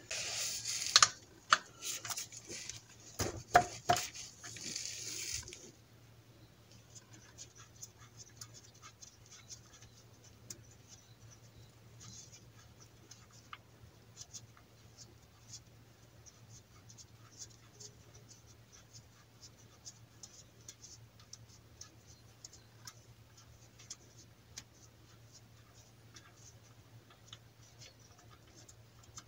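Gloved fingers working the oil drain bolt loose by hand under a Nissan Moco: faint scratching and small clicks over a steady low hum. For the first five seconds or so there is louder rustling with a few knocks.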